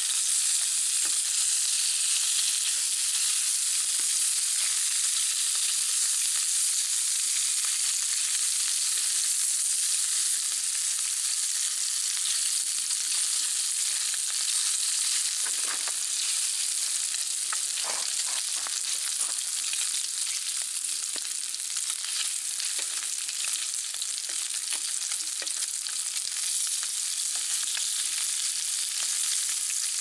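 Bacon and sausages sizzling steadily in a frying pan, with a few light clicks and scrapes of tongs turning the meat about halfway through.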